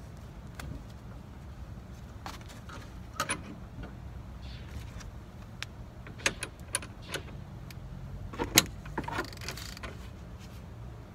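Scattered metallic clinks and knocks of hand tools against the front suspension parts as they are worked by hand, irregular and unrhythmic, the loudest about eight and a half seconds in. A low steady hum runs underneath.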